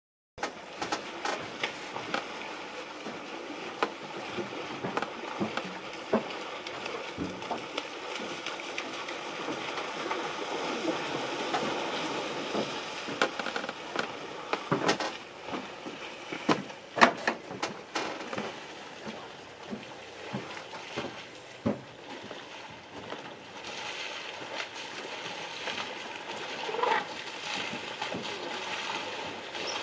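African elephants splashing and wallowing in a muddy waterhole: water sloshing, with many irregular sharp splashes. A short pitched call near the end.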